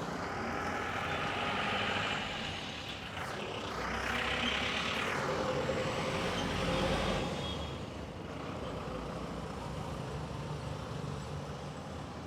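Street traffic: a motor vehicle passes close by, rising to its loudest about four to seven seconds in with a falling pitch as it goes, then a steady traffic hum.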